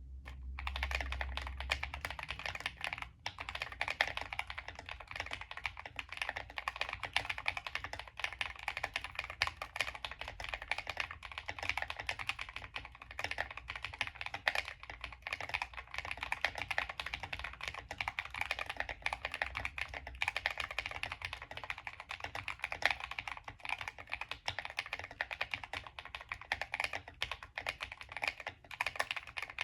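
Continuous fast typing on a GMMK Compact mechanical keyboard with lubed KTT Kang White V3 linear switches, PE foam and tape mod, and ABS keycaps: a dense stream of keystroke clacks, broken by a brief pause about three seconds in.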